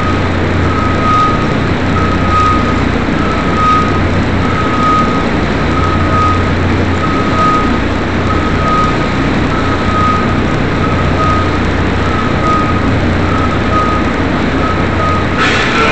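A vehicle's reversing alarm beeping steadily, about one and a half beeps a second, over loud, steady engine noise. Both cut off abruptly near the end.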